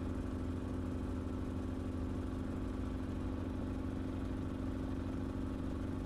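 Enstrom helicopter in cruise flight, its engine and rotors making a steady, unchanging drone with a constant hum, heard from the cockpit.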